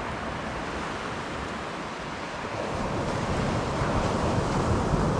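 Surf breaking on the beach with wind gusting over the microphone, an even rush of noise that grows louder about halfway through.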